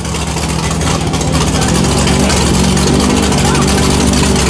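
Lifted Chevy Silverado mud truck's engine at full throttle, its wheels churning in deep mud. The revs climb about halfway through and stay high.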